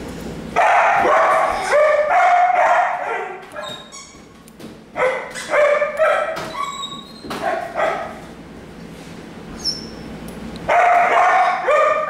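Lagotto Romagnolo crying out in three bouts of high-pitched, wavering cries, in protest at having hair plucked from its ear canal.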